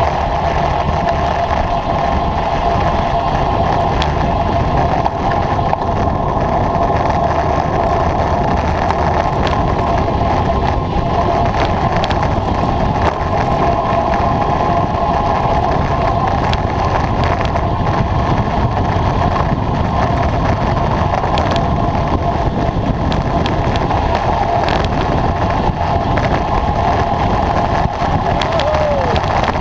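Steady rush of wind over the microphone of a camera mounted on a road bike descending at speed, with tyre noise from the road underneath.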